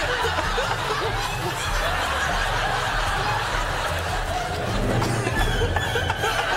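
Studio audience laughing and chuckling steadily, with music playing underneath.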